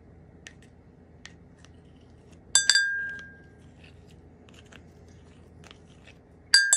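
Red plastic measuring spoon knocked against the rim of a ceramic mug to knock butter off it: one ringing clink about two and a half seconds in, then a quick run of five or six clinks near the end, with faint light ticks between.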